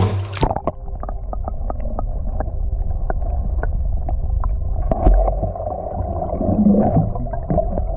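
Muffled underwater sound as picked up by a submerged camera: a low rumble of moving water with scattered clicks and knocks. The higher sounds cut off abruptly about half a second in.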